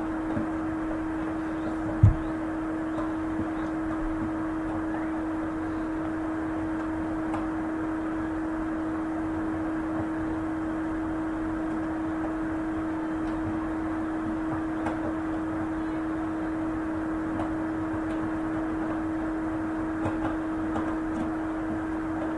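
Steady background hum at one held pitch, like a fan or small machine running, with a single low thump about two seconds in.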